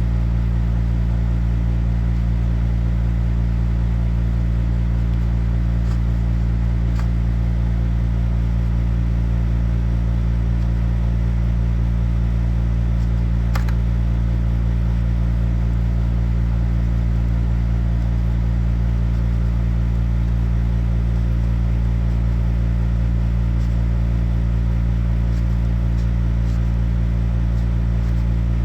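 A loud, steady, unchanging low machine hum with a few faint light clicks now and then.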